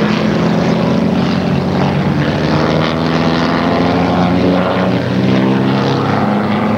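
Engines of vintage sports racing cars running at speed as they lap a race circuit, a loud steady drone with a slight dip in loudness about five seconds in.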